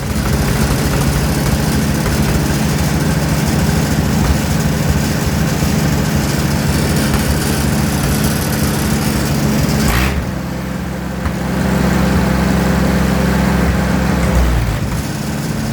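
Allis-Chalmers WD-45 tractor engine, built up for tractor pulls, running steadily with the throttle opened to warm it up. About ten seconds in, the engine note changes and dips briefly, then picks back up.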